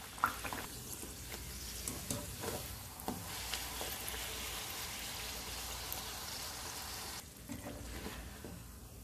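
Beetroot puri deep-frying in hot oil: a steady sizzle, with a few light clicks of a wire spider strainer against the pan in the first three seconds. The sizzle drops sharply about seven seconds in.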